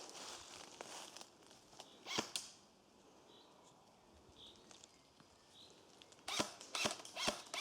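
Rustling of someone moving through forest undergrowth, then a sharp click about two seconds in. After a quiet stretch, a quick irregular run of sharp clicks and snaps starts about six seconds in.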